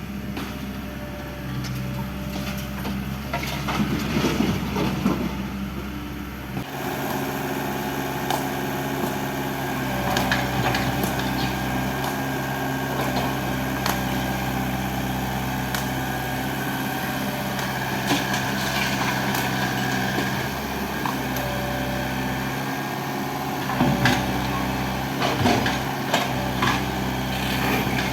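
Excavator's diesel engine running steadily, with scattered knocks and crunches, clustered about four seconds in and again near the end.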